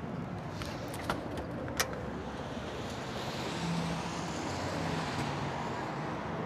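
Street traffic: a car drives past, its noise swelling through the middle and easing off, over a steady background of road noise. A few short sharp clicks sound in the first two seconds.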